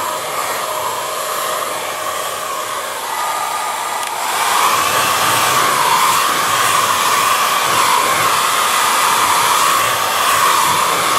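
Handheld hair dryer blowing steadily into a copper sink basin to warm it and clear out steel wool particles. About four seconds in it gets louder, and its whine wavers as it is swept around.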